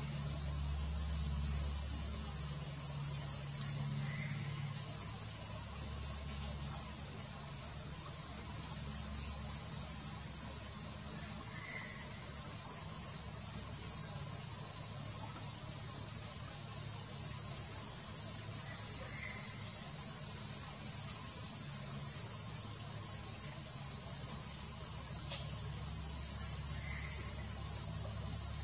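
Steady high-pitched drone of an insect chorus, with a faint low hum underneath.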